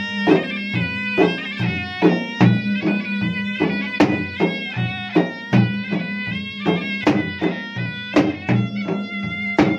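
Bugis-Makassar gendang ensemble: two double-headed barrel drums beaten with stick and hands in a quick, steady rhythm, about two to three strong strokes a second, under a hand-held wind pipe playing a continuous melody.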